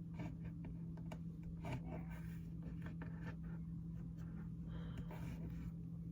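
Faint handling sounds while slime is worked and arranged: scattered small clicks and brief scratchy scraping, over a steady low hum.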